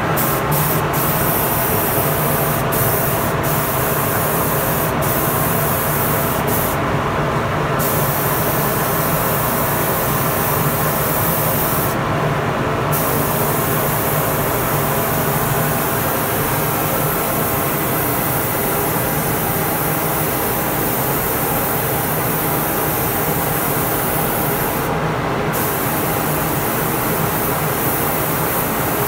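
Gravity-feed spray gun hissing steadily as it sprays finish onto a wooden chest. The hiss breaks off briefly three times, when the trigger is let go, over a steady low hum.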